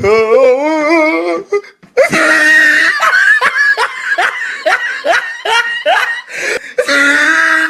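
A man's drawn-out wavering voice, then from about two seconds in a laughter sound effect: many laughs in quick repeated bursts that keep going.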